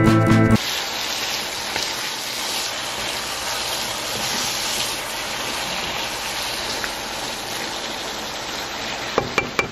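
Vegan beef strips and broccoli in sauce sizzling steadily in a nonstick pan over a gas flame as they are stirred with a spatula. A few knocks come near the end.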